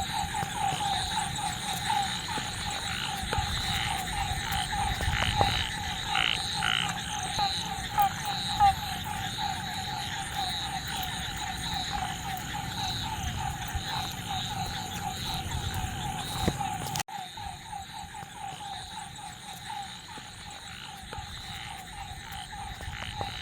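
Frog chorus ambience: frogs calling in rapid repeated croaking pulses, with a steady high-pitched chirring above. It breaks off for an instant about seventeen seconds in and carries on a little quieter.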